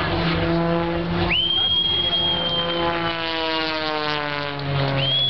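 Engine and propeller drone of aerobatic piston-engined planes in flight, its pitch sliding slowly down. A high thin whistle-like tone cuts in about a second in, holds for about two seconds, and returns near the end.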